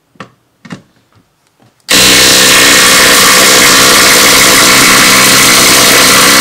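Ryobi P263 impact tool with a 3/8 socket hammering steadily on a lag screw in a wooden board, very loud, starting about two seconds in after a few light handling clicks.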